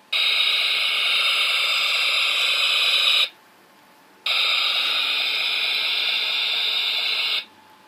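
Phaser-fire sound effect from the AMT/ERTL refit Enterprise model kit's built-in sound feature, played twice. Each burst is a steady, harsh hiss lasting about three seconds, with about a second of quiet between them.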